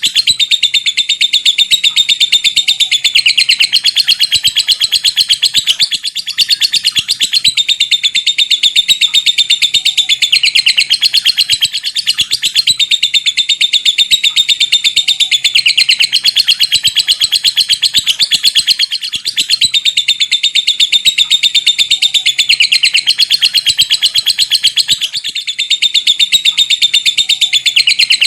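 Lovebird's long 'ngekek' chatter in the rapid 'ngetik' style: a fast, unbroken run of sharp high notes like typing. It breaks briefly about every six seconds and starts again.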